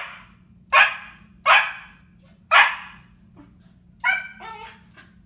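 Siberian husky puppy barking at her own reflection in a dark window: four sharp barks, then a couple of higher, more tuneful husky 'talking' yelps near the end.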